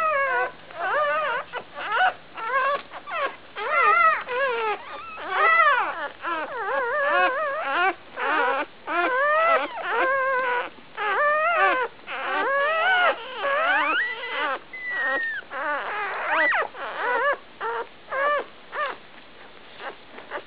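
Newborn, one-day-old Labrador retriever puppies whimpering and squealing. It is a near-continuous string of short, high-pitched cries that rise and fall in pitch.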